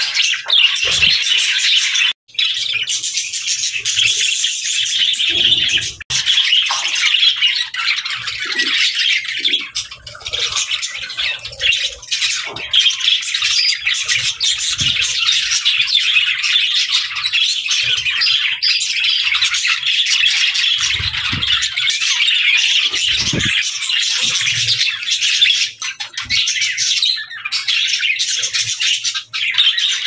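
A flock of budgerigars chattering continuously, a dense mix of warbling, chirps and squawks, with a few soft low thuds.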